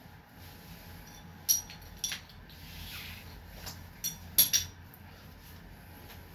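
A few sharp metallic clinks and knocks with a brief ringing: one about a second and a half in, another half a second later, then a quick cluster of three near the middle, with a soft rustle between them.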